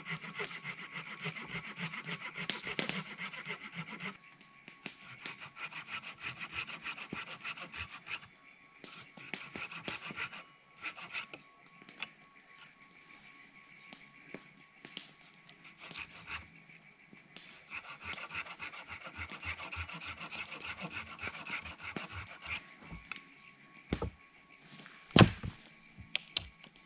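Hand saw cutting through a firewood log: several spells of fast back-and-forth strokes with pauses between them, then a sharp knock near the end.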